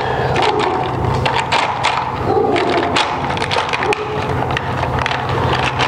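Plastic syringes and needle caps clicking and rattling against each other and a plastic box as hands rummage through it, in a quick, irregular run of small clicks.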